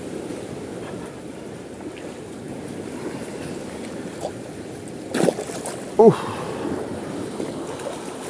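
Water lapping and wind on the microphone while a hooked black bass is played at the surface close to the bank. A short burst of noise comes about five seconds in, and a brief falling hum of a voice follows just after.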